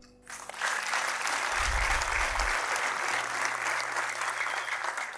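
Audience applauding: a steady patter of many hands clapping that starts about half a second in and dies away near the end.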